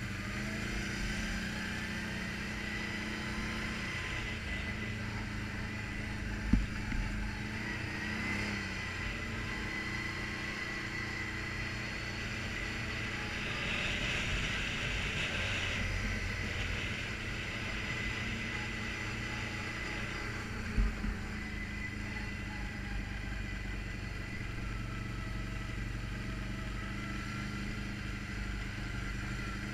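ATV engine running steadily while the quad is ridden along a rough dirt trail, with a steady high whine over it. Two sharp knocks stand out, about a quarter of the way in and again about two-thirds in.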